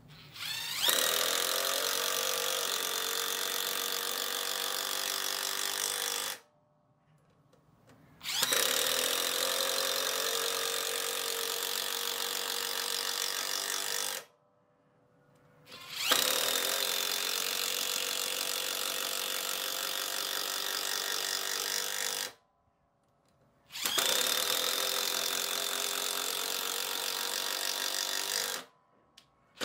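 Bosch GDR 12V-105 12-volt cordless impact driver impacting as it drives 6×70 mm wood screws into timber: four runs of about six seconds each, with short silent pauses between screws. The battery was nearly discharged, which the uploader says may have lowered the tool's performance.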